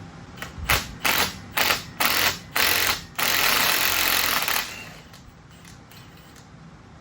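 A power tool working the steel of a Dana 60 axle housing to take off the coil spring buckets, run in five short bursts and then one longer burst that stops about four and a half seconds in.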